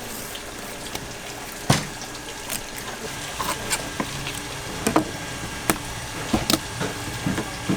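Knife work on a cutting board as fish are filleted for sashimi: scattered sharp taps and knocks at irregular intervals, the strongest a little under two seconds in, over a steady hiss of running water.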